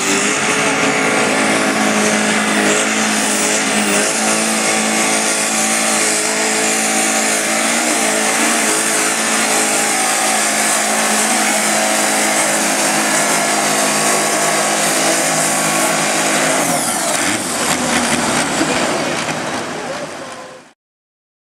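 Garden pulling tractor's engine running at full throttle under load as it drags a weight-transfer sled down the track. It is loud and steady, dies away from about three-quarters of the way in, and cuts off abruptly just before the end.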